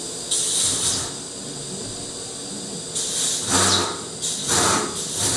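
Overhead chain hoist lifting the midframe off an Orenda 14 turbojet: a short hiss, then from about three seconds in a run of rasping, clattering bursts about every half to one second as the section is hoisted.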